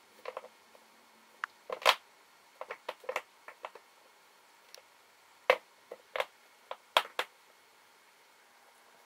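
Irregular sharp clicks and taps of a cat's claws, paws and a toy snake knocking against a clear acrylic cat shelf as the cat bats at the toy. The loudest tap comes about two seconds in, with more clusters around five and a half and seven seconds in.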